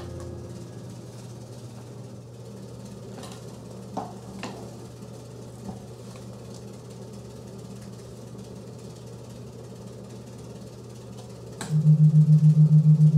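A steady low hum with a few soft clicks. Near the end, a loud, low electronic tone cuts in abruptly and pulses about nine times a second, like a brainwave-entrainment recording.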